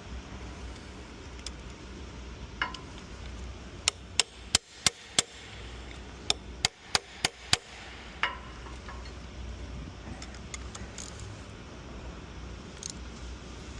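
A hammer tapping on steel: two quick runs of about five sharp taps each, about three a second, with a few single taps before and after.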